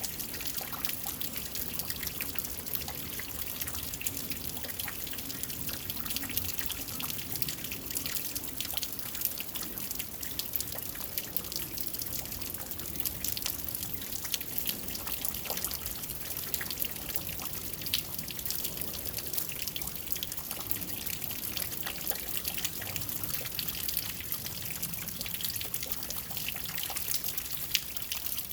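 Steady rain falling, a dense patter of many small drops with a trickling, dripping sound.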